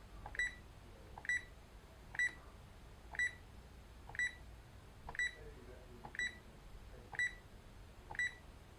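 Texecom alarm keypad giving a short high beep each time a scroll button is pressed, nine presses about one a second, each beep preceded by a faint button click: stepping through the keypad's menu.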